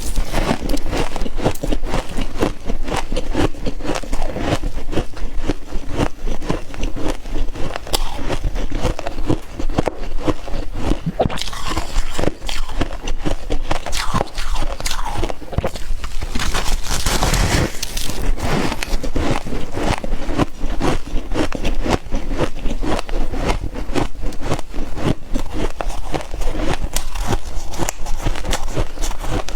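Freezer frost being bitten and chewed close up: a dense, unbroken run of crisp crunches, with a few louder bursts of crunching partway through.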